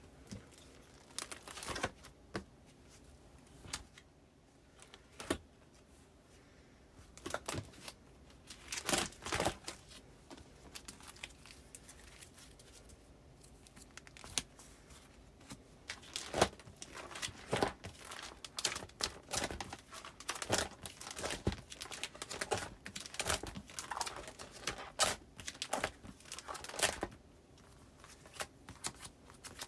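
Paper postcards and plastic binder sleeves being handled: irregular crinkling and rustling of plastic and paper with small clicks, busier in the second half.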